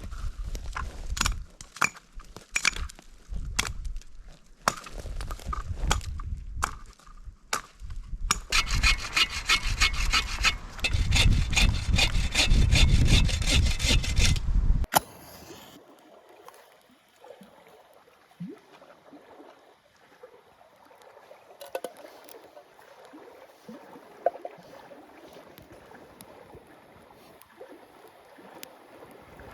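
A saw cutting through firewood in back-and-forth strokes, quickening and growing louder about eight seconds in, then stopping abruptly about halfway through. After that, quiet outdoor background with a few faint knocks.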